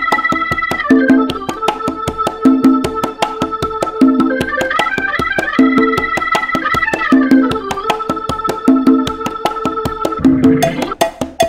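Instrumental salsa music: a held lead melody that slides between notes, over a steady percussion beat and a repeating low figure. Near the end the melody drops out, leaving the percussion alone.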